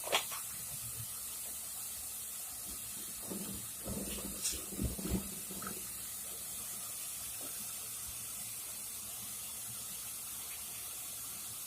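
Steady sizzling hiss of ghee heating in a cooking pot, with a few light knocks and thuds of a utensil or food going in about four to five seconds in.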